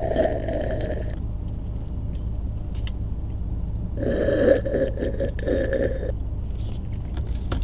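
Two long sips of a drink, the first at the start and the second about four seconds in, over the steady low rumble of a car cabin.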